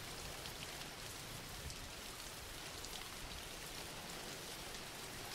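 Steady rainfall, soft and even, with faint scattered drop ticks.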